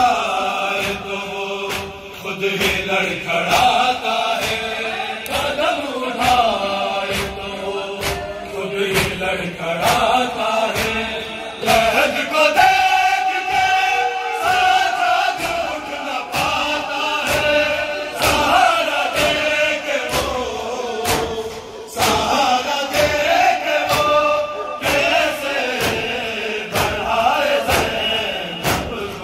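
A crowd of men chanting a noha (Shia lament) in unison behind a lead reciter, over a steady beat of hands striking chests (matam).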